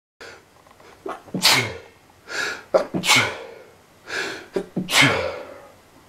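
A man sneezing three times in quick succession, each loud sneeze preceded by a sharp, gasping in-breath.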